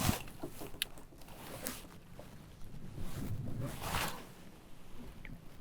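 Scattered light knocks and clicks of gear in a canoe, with a brief swish about four seconds in.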